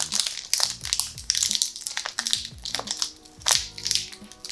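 Foil wrapper of a Pokémon booster pack crinkling and crackling as it is torn open, in a rapid series of sharp crackles. Background music plays underneath.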